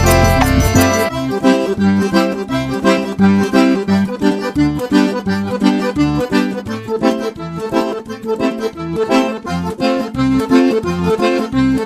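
Background music led by accordion, with a steady pulsing bass beat.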